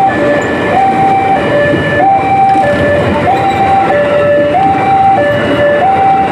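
Level crossing warning alarm sounding a steady two-tone signal, alternating a higher and a lower tone about every half second, over the noise of a KRL commuter electric train running past through the crossing.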